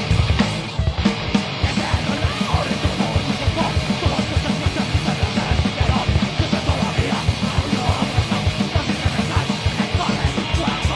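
Live heavy metal band playing: distorted electric guitar and bass over a drum kit, with rapid, steady kick-drum beats.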